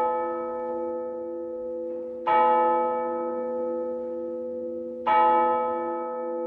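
A single church bell tolled slowly at the same pitch, struck about every three seconds. It strikes twice, each stroke ringing on until the next.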